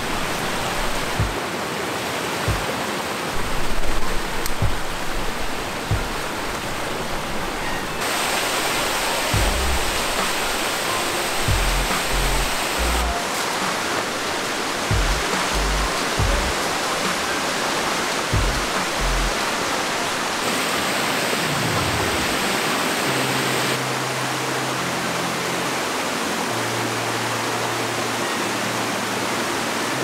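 Steady rush of a rocky mountain stream and small cascades, a full, even hiss of water whose character shifts abruptly a few times. Low, held background music notes sit underneath in the second half.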